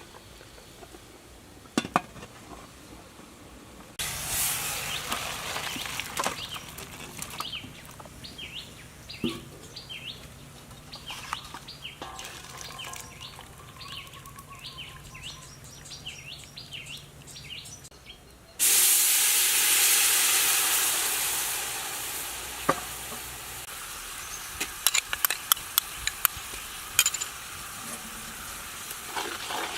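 Food hitting hot oil and sizzling loudly about two-thirds of the way through: the hiss starts suddenly and settles over a few seconds. Before it, quick birdlike chirps over a soft hiss; near the end, a rapid run of clicks like a utensil on the pan.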